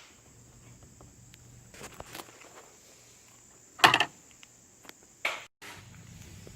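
A few short knocks and clatters of things being handled, the loudest about four seconds in.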